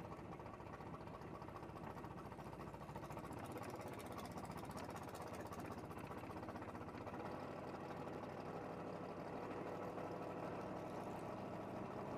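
Gasser drag car's engine, fed through twin intake stacks, running steadily at low speed as the car rolls along, heard from inside the cabin. It gets a little louder in the last few seconds.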